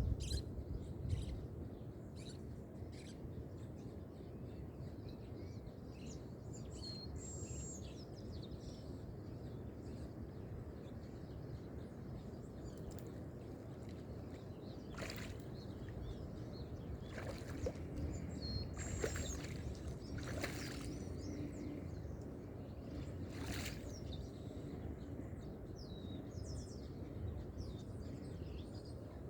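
Lakeside nature ambience: a steady low wash of water, with short high bird chirps dotted throughout and more of them in the second half.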